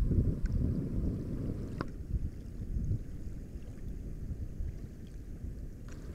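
Wind buffeting the microphone outdoors, a low rumbling noise that eases off a little, with a faint click about two seconds in.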